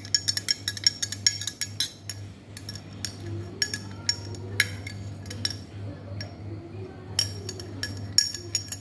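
Metal teaspoon stirring milk in a glass tumbler, clinking rapidly against the glass sides with a short ring after each tap. The clinks thin out in the middle and come quickly again near the end.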